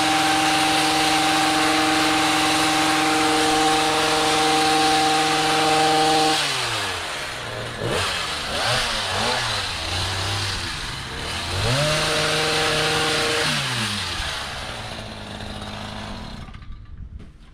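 Small two-stroke engine of a gas hedge trimmer held at full throttle, dropping to a wavering idle about six seconds in. It is revved up briefly once more, then winds down and cuts off near the end.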